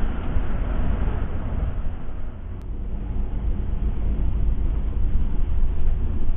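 Bus on the move: a steady low rumble of engine and road noise, easing briefly about two and a half seconds in.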